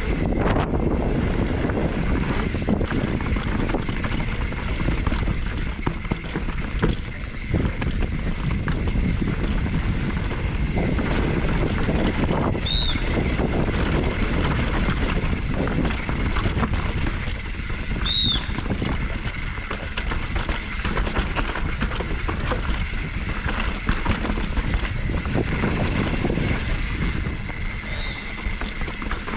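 Wind rushing over a GoPro Hero 8's microphone, mixed with the constant clatter and rattle of a YT Tues downhill mountain bike's tyres, chain and suspension over rocks and roots at speed, with a couple of brief high squeaks partway through.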